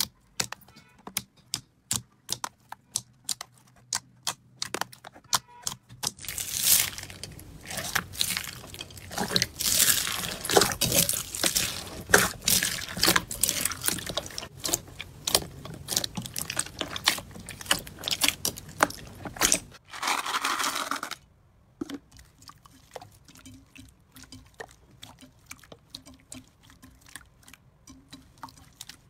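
Hands squeezing, poking and pulling slime: a run of sharp wet clicks and pops as trapped air bursts. The clicks grow dense and loud for a long stretch in the middle, then thin out to sparse, quieter pops near the end.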